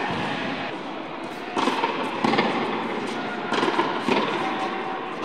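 Tennis balls struck by rackets and bouncing on an indoor hard court during a rally: several sharp hits that echo around a large hall over a steady background hiss.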